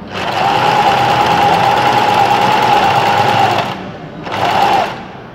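Willpex WP653 household sewing machine stitching a zipper onto fabric, its motor running with a steady whine for about three and a half seconds, stopping, then running again briefly.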